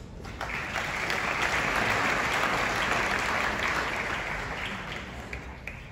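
Audience applauding in a large hall: the clapping starts about half a second in, holds steady, then fades away near the end.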